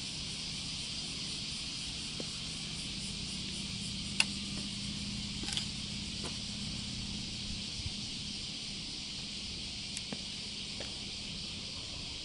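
Steady high-pitched drone of summer insects, with a faint low hum underneath and a few small clicks.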